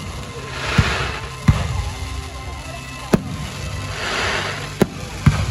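Fireworks going off: five sharp bangs, the last two close together near the end, with two spells of hissing crackle, about a second in and again around four seconds.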